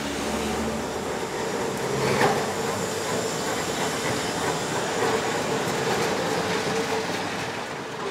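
Electric streetcar rolling past on steel rails, a steady rumble and hum with a single knock about two seconds in, fading as it moves away near the end.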